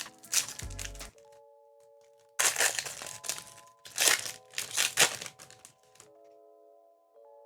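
Soft background music with foil booster-pack wrappers crinkling and tearing in several bursts: one in the first second, then a run of bursts between about two and a half and five seconds in.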